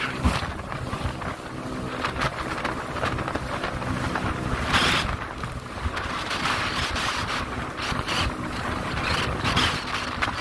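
Boat engine running steadily under way, with wind buffeting the microphone and water rushing along the hull.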